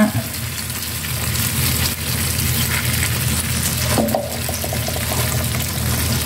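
Sauce with sliced onion sizzling and bubbling steadily in a nonstick double-sided pan as a silicone spatula stirs it, cooking down after a splash of water.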